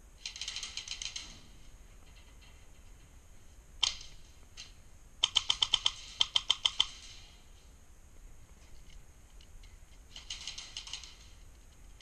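Airsoft guns firing in quick bursts of sharp clicking shots. A loud run of about a dozen shots comes around five to seven seconds in, with fainter bursts near the start and near the end and a single crack at about four seconds.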